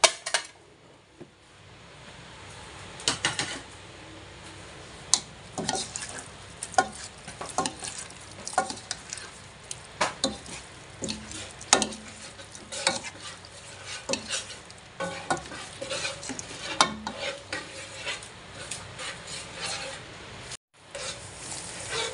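Chicken liver, squid and shrimp sizzling in a frying pan as they are stir-fried, a cooking utensil scraping and knocking against the pan every second or so. The sound cuts out for a moment near the end.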